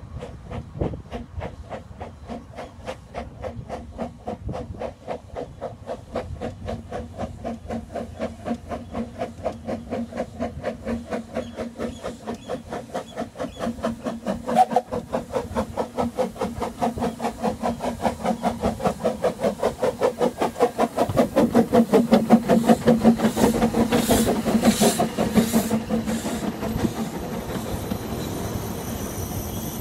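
Narrow-gauge steam train approaching and running past: a steady, rhythmic beat with hiss that grows louder as the locomotive draws near, then eases as the carriages go by.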